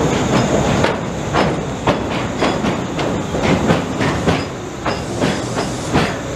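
Electric train running over a steel river bridge, heard from inside the carriage: a steady rumble with irregular clicks and knocks of the wheels over rail joints.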